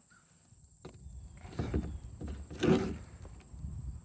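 Handling noise: a few dull knocks and rustles with a low rumble, the loudest about two and three-quarter seconds in.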